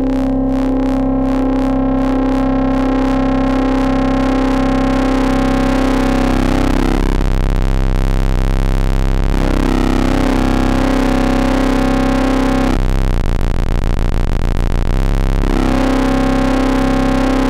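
Moog Werkstatt-01 drone: its VCO's pulse wave mixed with a second oscillator's sawtooth through the Werkstatt's ladder filter, with the filter output fed back into the mix. The feedback drives the filter into a gritty, distortion-like overload. A steady held note whose tone colour shifts twice as the controls are turned.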